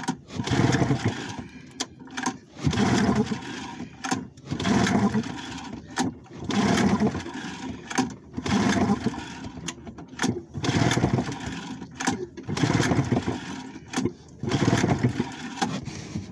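Old two-cylinder outboard motor being pull-started again and again: about eight pulls roughly two seconds apart, each a short burst of cranking that dies away without the engine catching and running. It is a rebuilt engine, unrun for weeks, that will not start.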